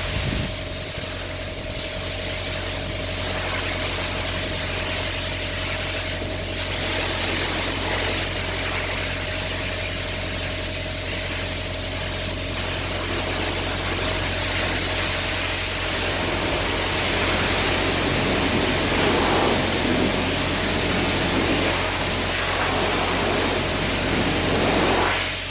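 Pressure washer running: a steady motor hum under the hiss of the high-pressure water jet, the hiss swelling and easing as the spray moves over the cubicle surfaces.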